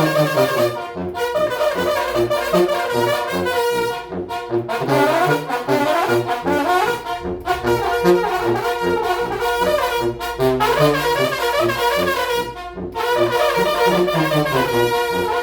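Banda brass band playing an instrumental passage, with trumpets and trombones carrying the melody over an evenly pulsing bass line.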